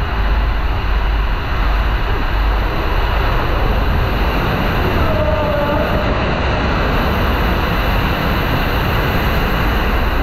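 Inflatable tube raft sliding fast down an enclosed water slide tube: a loud, steady rush of water with a deep rumble of the raft against the tube walls. A faint wavering tone comes through briefly about five seconds in.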